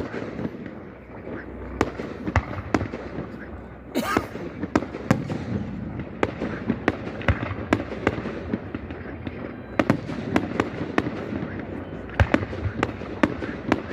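Fireworks display: a rapid run of sharp bangs and crackles over a continuous rumble, with a longer, louder burst about four seconds in and tight clusters of bangs in the second half.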